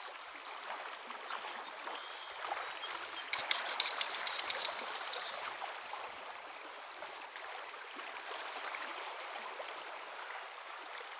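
Steady rush of a fast-flowing river current. About three seconds in comes a spell of crackling clicks lasting under two seconds.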